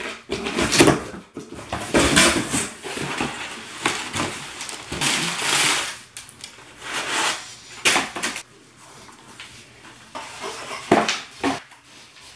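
Cardboard shipping box torn open and a shoebox unpacked, with paper rustling and tearing in irregular bursts for the first eight seconds or so, then quieter handling with a few sharp clicks as a shoe is taken out and its laces are threaded.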